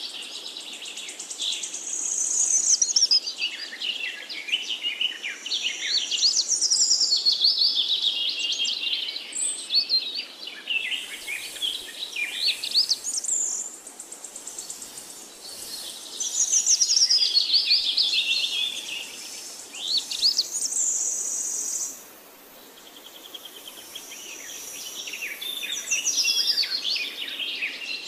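Birds singing: many overlapping high chirps, whistles and trills, with a brief lull about two thirds of the way through.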